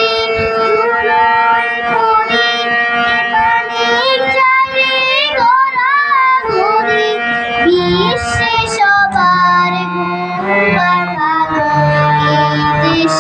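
A young girl singing a Bengali patriotic song, with held notes and a wavering run in the middle, over steady instrumental accompaniment.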